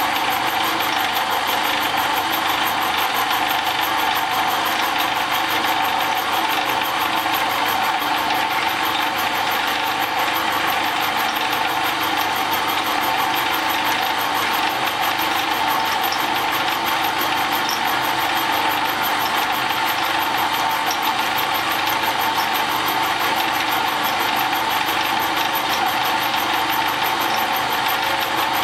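Milling machine running steadily, its end mill cutting a bronze bearing pad with an even, unbroken machining noise and a constant whine.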